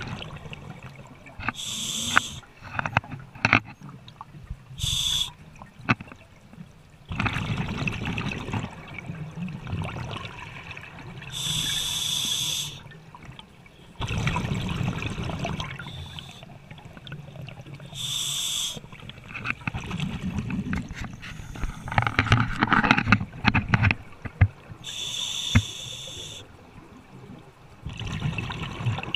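Scuba diver breathing through a regulator underwater: a short hissing inhale, then a longer rumbling rush of exhaled bubbles, repeating about every six or seven seconds.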